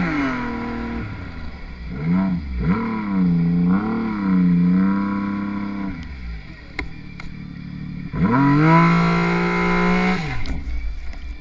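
Yamaha SRViper snowmobile's three-cylinder four-stroke engine revving under load in deep powder. The revs rise and fall over the first six seconds, then drop to a lower, quieter run. About eight seconds in there is a sharp rev-up, held for about two seconds before it falls off.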